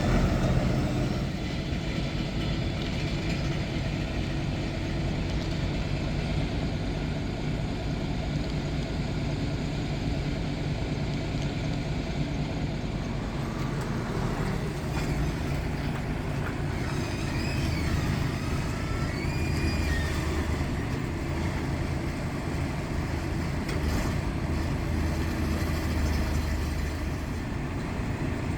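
Heavy-equipment diesel engine running steadily with a low rumble, as a crawler pile driver is loaded onto a truck.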